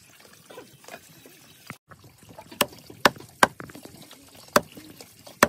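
A large heavy knife chopping through a raw chicken into a wooden log chopping block. Five sharp chops come from about halfway through, unevenly spaced.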